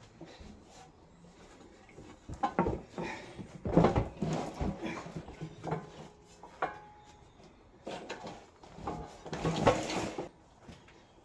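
Irregular metal clunks, knocks and scraping as a fuel tank is handled and worked into position under the vehicle, in separate bouts with a longer, louder rattling scrape near the end.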